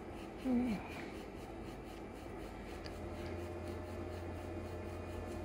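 Faint scratching and rubbing of wire wool twisted in a dive light's charging-pin socket to clean the pins, with a brief falling tone about half a second in.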